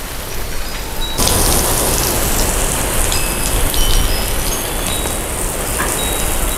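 Water from a Uni-Spray single-stream nozzle's jet falling back and splashing onto a concrete slab: a steady sound of falling water, louder from about a second in.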